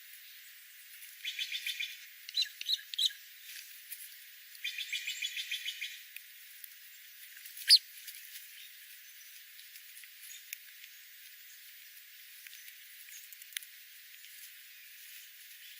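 Small songbirds calling: two quick chattering trills of rapid repeated notes, a few sharp chips between them, and one loud high chip about eight seconds in, then only faint scattered ticks.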